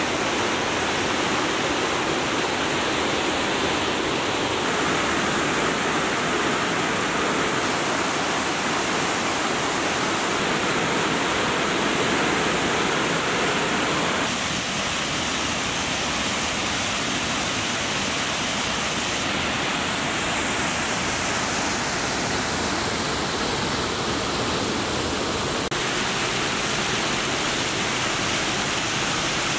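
Steady rush of water pouring over small waterfalls and cascades on Multnomah Creek, a dense even hiss, loud and close. Its tone shifts abruptly several times, brighter or duller from one stretch of falling water to the next.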